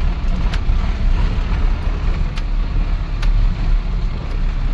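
Steady engine and road rumble of an off-road vehicle being driven, heard from inside its cabin, with a few sharp clicks or knocks from the body over the road.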